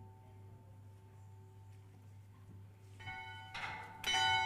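A bell struck twice, about a second apart. The first strike comes about three seconds in and the second, louder one about four seconds in; both keep ringing.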